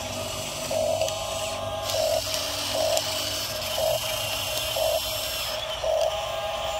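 Electric drive motors and gearboxes of a small RC crawler bulldozer whirring as it pushes a blade load of gravel, with a steady high whine and a regular pulsing about once a second.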